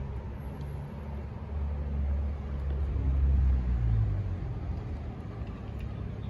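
City street traffic, with a passing vehicle's low engine rumble swelling from about a second and a half in, peaking around three and a half seconds, then fading.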